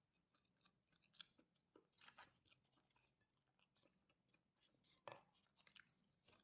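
Faint chewing and crunching of fried rice with krupuk crackers, scattered soft crunches with a few sharper ones.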